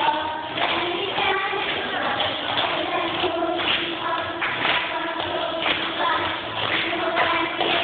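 Young girls singing a song together into microphones, their voices steady and continuous.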